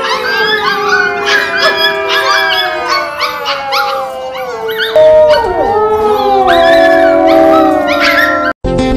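Several husky puppies howling together, high wavering howls rising and falling over one another, with background music under them.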